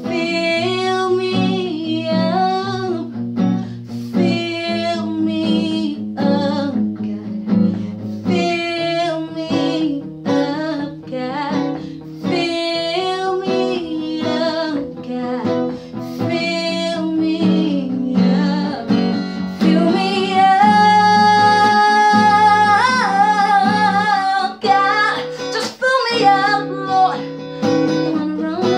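A woman singing a gospel song with bending vocal runs, accompanied by an acoustic guitar playing chords. About two-thirds of the way through she holds one long note with a wavering pitch, the loudest part.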